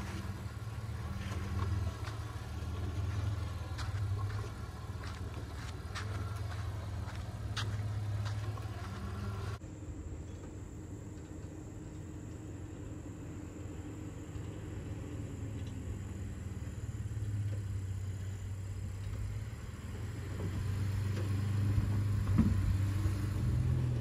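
Nissan Frontier pickup's V6 engine running at low, crawling speed on a dirt trail, a steady low hum with a few sharp clicks in the first several seconds. About ten seconds in the sound changes abruptly to a more distant, steady engine hum of the truck on another stretch of trail.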